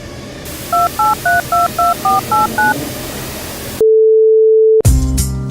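Telephone keypad dialing: eight short two-note touch-tone beeps, about four a second, over a hiss, followed by a loud steady tone lasting about a second. Music starts near the end.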